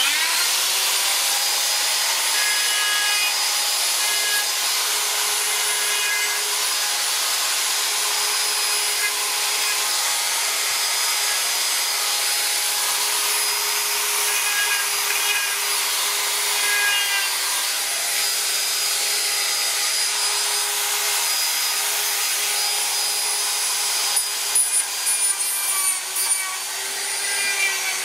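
Flexible-shaft rotary carving tool running at a steady high whine while its bit grinds into the wood of a carving. The grinding turns uneven and choppy for a few seconds near the end.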